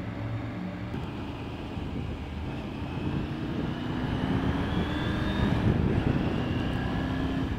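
Triumph Tiger 900 GT Pro's three-cylinder engine running at low road speed, heard from the rider's seat. Its pitch climbs steadily for a few seconds from about three seconds in, then drops back about five and a half seconds in and holds.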